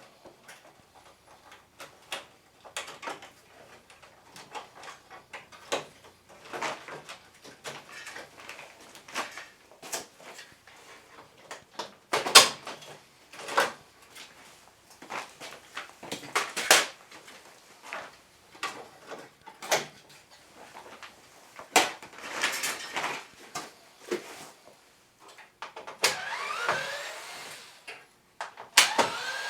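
Plastic covers and parts of a Panasonic air conditioner being handled and unclipped during disassembly: scattered clicks and knocks, with a longer scraping, squeaking stretch near the end.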